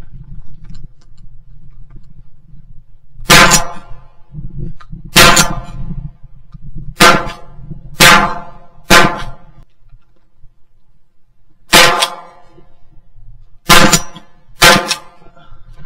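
Shotgun shots fired at wood pigeons, heard very close and loud from a gun-mounted action camera: eight sharp blasts, single shots about 3 and 5 seconds in, three about a second apart around 7 to 9 seconds, one near 12 seconds and a pair near the end.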